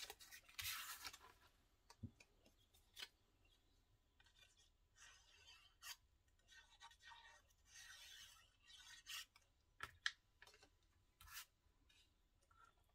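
Faint rustling, scraping and light taps of paper and cardstock being handled, laid down and smoothed by hand while being glued in layers.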